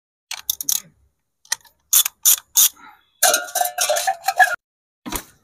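Socket ratchet clicking as it turns out the oil drain nut on a Suzuki Access 125 scooter's engine. A few separate clicks come first, then a quicker run of clicking for about a second and a half, then one last click near the end.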